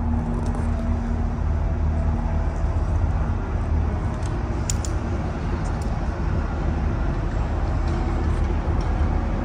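Steady low rumble of outdoor background noise, like distant traffic, with a few faint clicks about halfway through.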